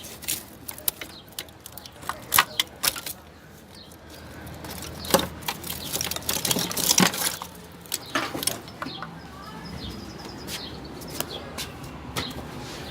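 Irregular sharp clicks, knocks and rattles of a car's wiring harness and its plastic connectors being unclipped and pulled out.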